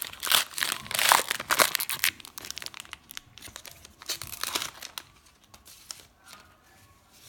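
Trading card pack wrapper crinkling and tearing as the pack is opened, dense and loud for the first two seconds, then thinning to occasional faint rustles.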